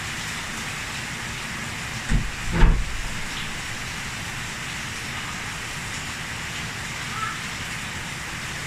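Steady hiss of rain falling, with two short dull knocks between two and three seconds in.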